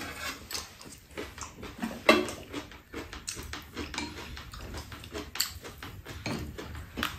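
Close-up eating sounds: slurping soup and chewing, with spoons and chopsticks clicking against the bowls.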